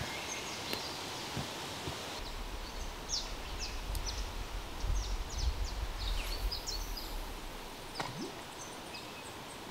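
Outdoor bush ambience: a steady hiss, then from about two seconds in a run of short, high bird chirps over a low rumble that fades near the end.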